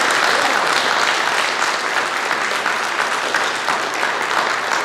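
Congregation applauding: many people clapping together in a dense, steady patter that eases slightly near the end.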